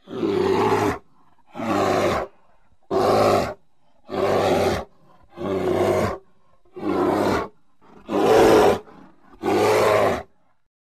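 Grizzly bear roaring: eight loud roars of under a second each, evenly spaced about a second and a half apart.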